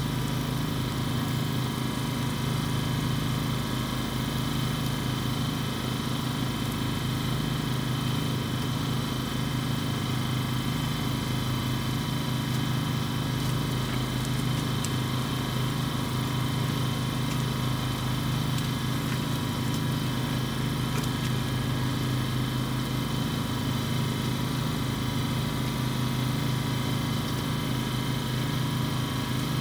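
An engine running steadily at constant speed: an unbroken, even drone with a strong low hum and a few fixed higher tones.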